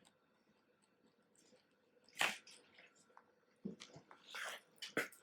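Mini rabbit chewing and crunching its food: quiet at first, then a sharp crunch about two seconds in and a run of crisp crunches near the end.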